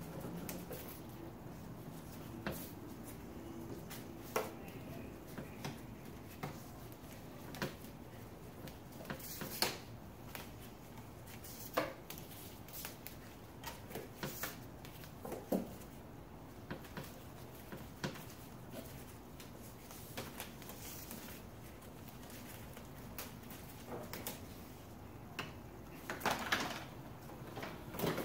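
Handling noise from cables being pulled and routed through a jet ski's hull and hood: scattered light clicks, taps and rustles, with a short cluster of knocks near the end, over a steady faint background hiss.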